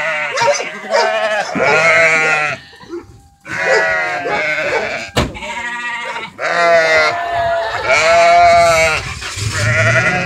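Penned sheep and goats bleating, about six long quavering calls one after another, some overlapping. A sharp click about five seconds in.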